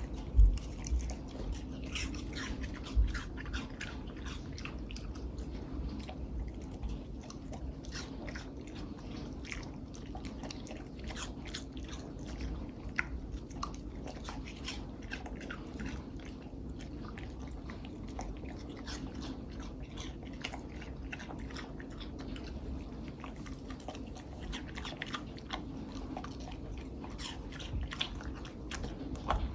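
A dog chewing and biting juicy watermelon cubes, a steady run of wet crunches and smacking clicks. A couple of louder low thumps come in the first second, and a steady low hum runs underneath.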